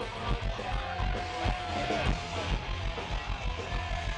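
Live thrash metal band playing loud: distorted electric guitars over fast, pounding drums.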